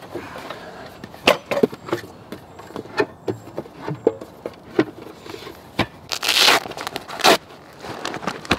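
Handling and unpacking camp gear: nylon pouches rustling and small items knocking and clattering in a series of short sharp sounds, with a longer rustle about six seconds in.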